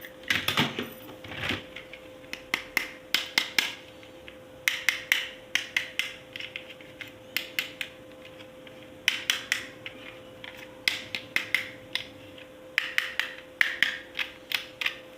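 Hard plastic toy parts clicking and clattering as they are handled, in quick clusters of sharp clicks every second or so, over a faint steady hum.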